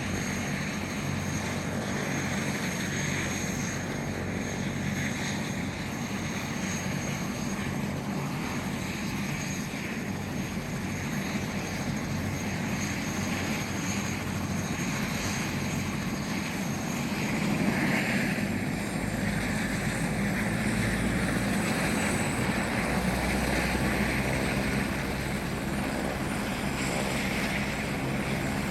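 Medical helicopter's turbine engine and rotor running: a steady rotor drone under a thin high turbine whine. It grows a little louder a bit past halfway through.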